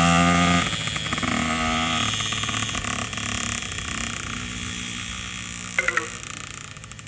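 Dirt bike engines running: a full-size motocross bike pulls away and fades with distance, with a child's small motorbike running at the same time. A brief high-pitched sound pulses three times about six seconds in.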